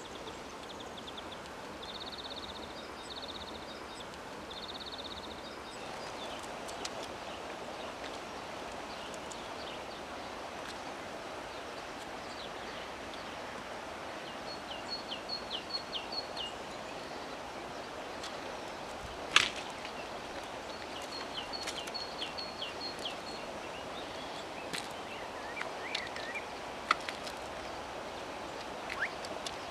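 Riverside outdoor ambience: a steady rushing background with small birds chirping in short repeated phrases now and then. A single sharp click stands out about two-thirds of the way through.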